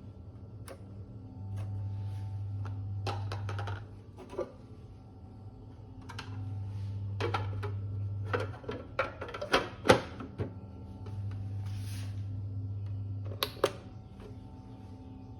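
Light clicks and knocks like hard plastic being handled, bunched together about nine to ten seconds in, over a low hum that switches on and off every few seconds.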